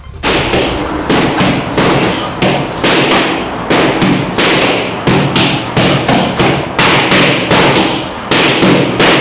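Boxing gloves smacking into flexible-handled focus mitts (Flex-Mitts) during pad work, a steady run of sharp hits at about two a second.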